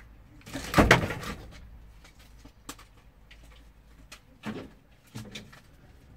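Knocks and clunks from the body of a parked van, heard from inside its cab, as scrap is handled around it: a heavy clunk with a short rattle about a second in, then a few lighter knocks later on.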